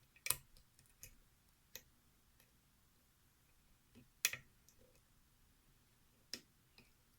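About half a dozen small, sharp metallic clicks at irregular intervals, with fainter ticks between them: a lock pick working the pins of a pin-tumbler challenge lock under a tension wrench. The loudest click comes about four seconds in. The picker takes these sounds as a sign that he is oversetting the pins.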